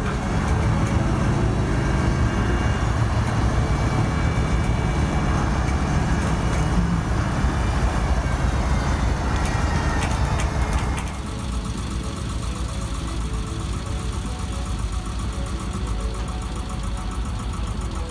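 Engine of a shell and auger drilling rig running under load as its winch raises the mast, then dropping to a quieter, steadier running about eleven seconds in.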